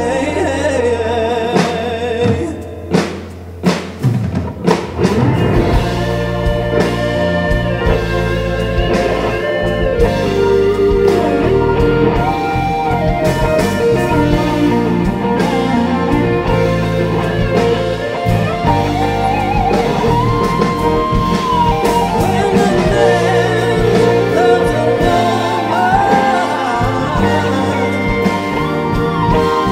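Live symphony orchestra with a band, drum kit and bass included, playing film music, with a singer's voice carrying the melody. A run of sharp drum hits comes about two to five seconds in, then the full ensemble plays on steadily.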